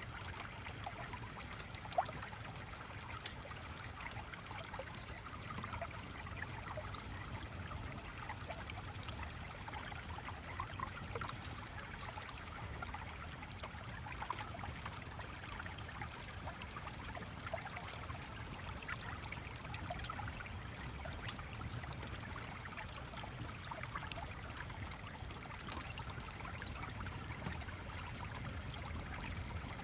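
Small stream flowing steadily, with scattered light ticks and one sharper click about two seconds in.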